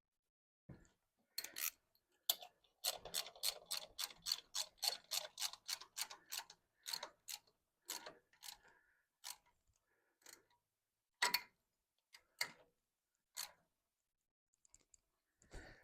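A run of sharp mechanical clicks, about four a second for several seconds, then slowing to scattered single clicks.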